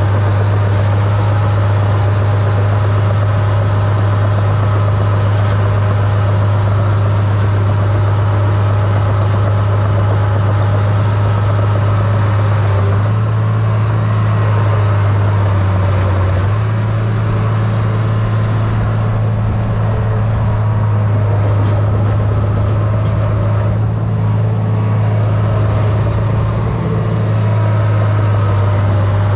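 Small crawler dozer's diesel engine running steadily as it pushes snow. Its note drops for a few seconds about halfway through, then returns.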